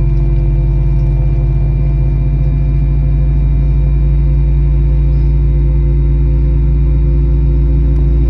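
Steady cabin drone of an Airbus A321 on the ground, heard from inside the cabin: a loud low hum with several steady whining tones above it.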